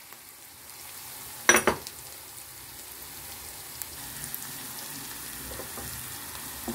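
Sliced onions and garlic sizzling steadily in oil in a stainless steel pan, stirred with a plastic spoon; a single sharp knock about a second and a half in.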